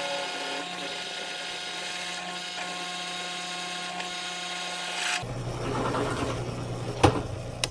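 Power drill boring a half-inch hole through 3/8-inch steel plate in one pass with a Pferd cobalt twist bit: steady motor whine under a dense cutting noise. About five seconds in, the cutting stops as the bit breaks through and a lower hum carries on, with two sharp clicks near the end.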